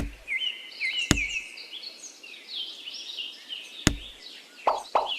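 Small birds chirping over and over in the background, with two sharp knocks about a second in and near four seconds, then a quick run of short strokes, about four a second, near the end.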